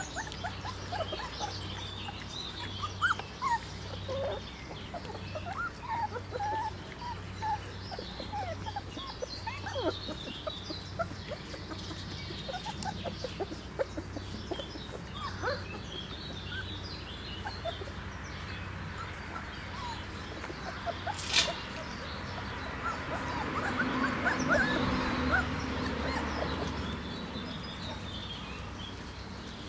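Young Bernese Mountain Dog puppies squeaking and whimpering as they nurse, in many short, high squeaks scattered throughout. A single sharp click comes about two-thirds of the way through.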